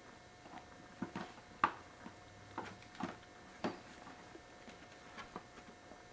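Scattered light clicks and taps of small objects being handled, about eight in all, with the sharpest about one and a half seconds in, over a faint steady hum.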